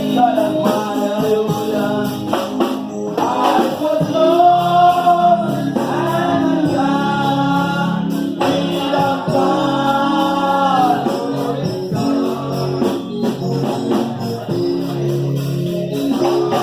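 Gospel singing with tambourine accompaniment: long held sung notes that slide at their ends.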